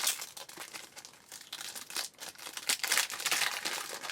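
Foil wrapper of a baseball card pack crinkling and tearing as it is opened by hand, loudest at the start and again in a stretch about three seconds in.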